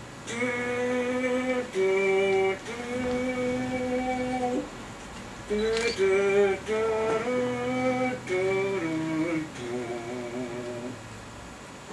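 Harmonica playing a slow melody of long held notes, often two notes sounding together, in phrases with short breaks between them. The notes waver near the end.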